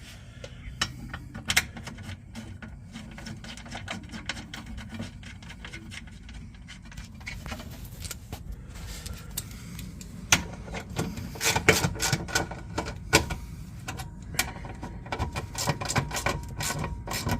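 Metal hand tools clicking and clinking on bolts as they are threaded and tightened, the clicks getting busier about halfway through, over a steady low hum.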